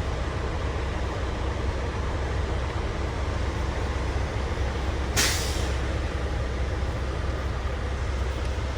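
Steady low rumble of an idling heavy-truck diesel engine, with one short, sharp hiss of released air, like an air brake letting off, about five seconds in.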